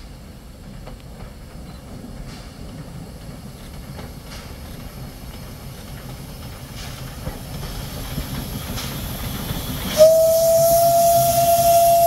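Rack steam locomotive hauling a passenger train, its low running rumble growing louder as it approaches. About ten seconds in, its steam whistle starts suddenly and is held on one steady note, with a hiss of steam.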